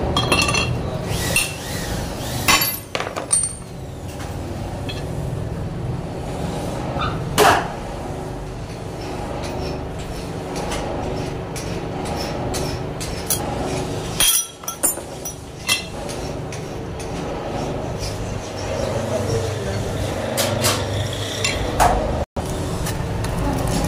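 Scattered metal clinks and taps as a motorcycle crankshaft half and its bearing are handled against a steel press block, with a sharper knock about seven seconds in, over a steady low hum.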